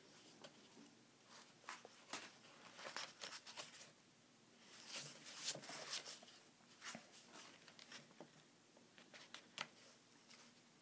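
Pages of a comic-strip book being turned and handled: faint papery rustles and flicks, loudest about five to six seconds in.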